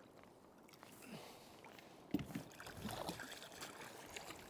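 Faint water sloshing against a kayak hull, with a few louder sloshes about two and three seconds in.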